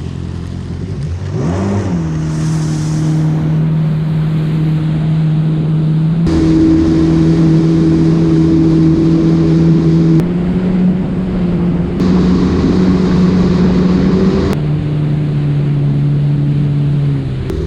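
Yamaha WaveRunner personal watercraft engine speeding up about two seconds in, then running steadily at speed with the rush of water and wind. Its pitch jumps up or down abruptly several times.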